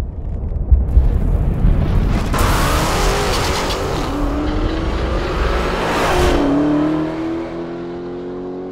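Dodge Challenger SRT Demon's supercharged 6.2-litre HEMI V8 launching and accelerating hard. Its pitch climbs and drops at upshifts about four and six seconds in, over a dense rushing hiss from about two to six seconds in.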